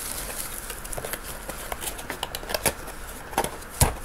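Small cardboard box handled and closed: rustling and light clicks of card and paper, with one sharper knock near the end.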